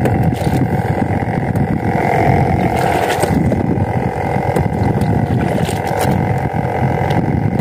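Small fishing boat's engine running steadily with a constant hum, and water and wind noise mixed in.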